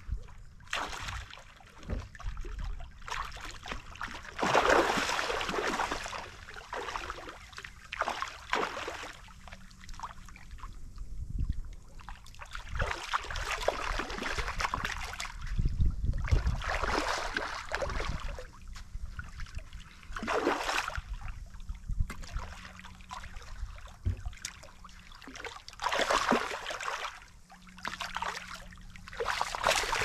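Shallow water washing and lapping against a sandy shore in surges every few seconds, stirred by a hooked shark swimming in the shallows. Near the end the shark thrashes at the water's edge in a burst of splashing.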